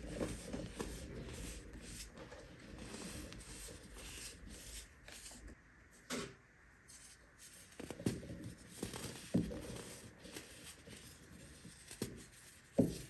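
Baking soda being handled: quiet, scattered crunching and rubbing, with a few sharper cracks here and there and a short hush about six seconds in.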